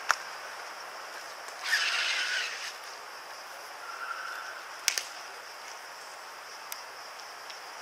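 Sharp taps of an Evzone guard's hobnailed tsarouhi shoes striking the marble pavement during the slow ceremonial march: one just after the start and a double tap about five seconds in. A brief rushing hiss comes about two seconds in, over a steady high hiss.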